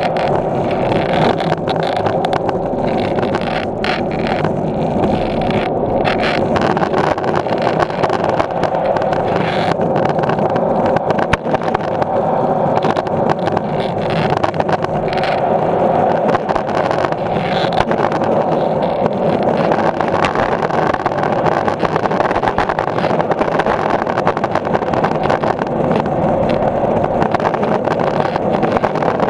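Skateboard wheels rolling on a concrete deck: a loud, steady rumble broken by scattered sharp clicks.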